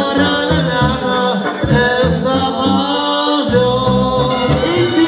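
Mexican banda brass band playing live: a stepping low bass line under a brass melody.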